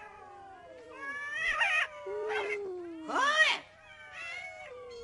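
Several cats meowing, their drawn-out calls overlapping at different pitches, the loudest a rising-then-falling meow about three seconds in.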